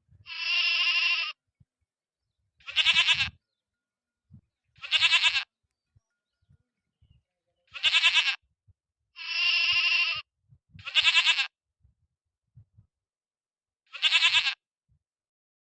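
A farm animal bleating: seven separate calls, each between half a second and a second long, with silence between them. Two of the calls are longer and steadier than the others.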